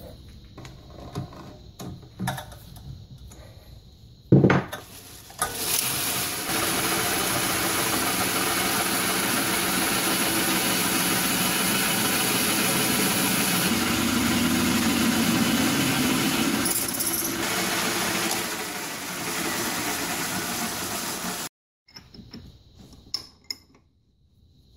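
A metal lathe runs steadily while a twist drill held in a Jacobs No. 500 keyless chuck in the tailstock bores into the spinning metal workpiece. This lasts about fifteen seconds, then cuts off suddenly. Before it come light clicks and one sharp knock as the chuck is snugged by hand around the drill bit, and after it a few light clicks.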